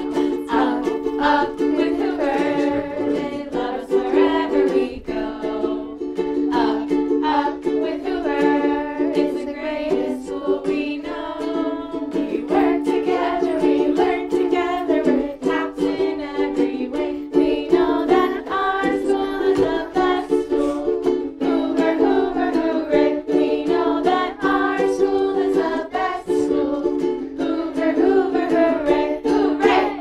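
Two ukuleles strummed in a steady rhythm, accompanying voices singing the school song; the music stops at the very end.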